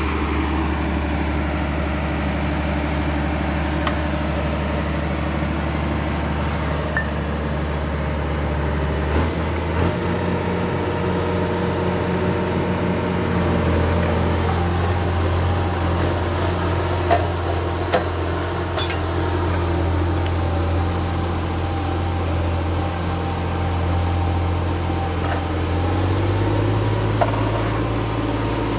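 John Deere 4755 tractor's six-cylinder turbo diesel running steadily under load, pulling a mounted plough through soil. Its note steps up about ten seconds in and again near the end.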